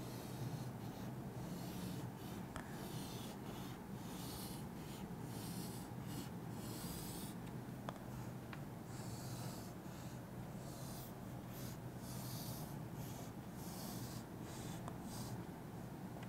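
Chalk scratching on a chalkboard in a series of short, irregular drawing strokes, faint over a low steady room hum.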